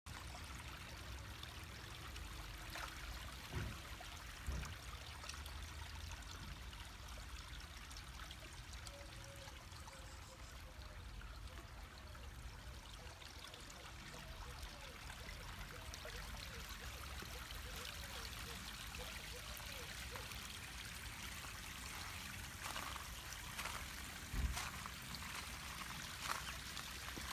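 Water trickling steadily into a garden pond from a small water feature, with a few dull thumps and a faint wavering call in the middle.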